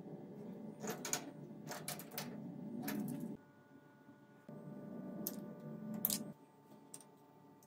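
Sharp metal clicks and clinks of hand work on a lathe's four-way tool post and compound slide with a small wrench, several times over. Under them, a low rumbling noise stops abruptly a little past a third of the way through and returns about a second later.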